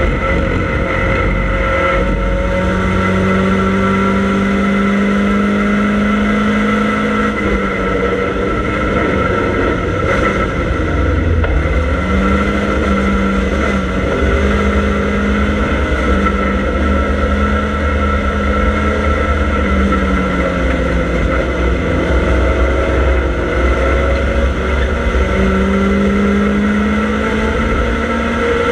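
Triumph Dolomite Sprint's 2.0-litre slant-four racing engine at speed, heard from inside the stripped cabin. The engine note climbs slowly, falls away about seven seconds in and again about twenty seconds in, then climbs again.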